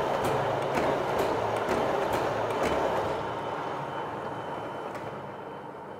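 Cylinder honing machine making its finishing pass in a bore of a Kia/Hyundai G4KE engine block: a steady rasping of the stones against the cylinder wall with a light click about twice a second. It winds down from about halfway through as the machine stops.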